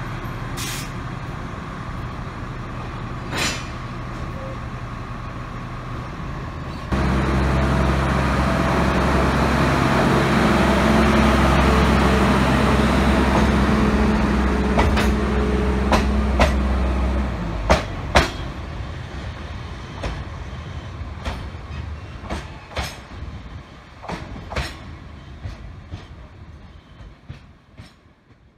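Diesel switcher locomotive shunting gravel-loaded freight wagons: the engine runs steadily, then about seven seconds in it suddenly opens up to a loud, heavy drone for some ten seconds before throttling back. Wheels clack and knock over the rail joints as the wagons roll by, and the sound fades away near the end.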